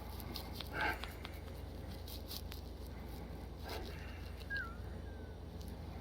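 A young girl breathing with a wheeze: two short breath sounds, then near the end faint high whistling tones that dip in pitch.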